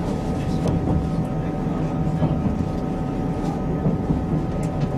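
Inside a moving passenger train: a steady low rumble of the wheels running on the track, with scattered light clicks and knocks and a faint steady whine.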